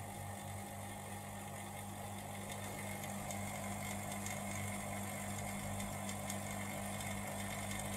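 Valve vacuum tester's pump running with a steady hum while it draws vacuum through a cylinder-head valve, testing how well the valve seals against its seat.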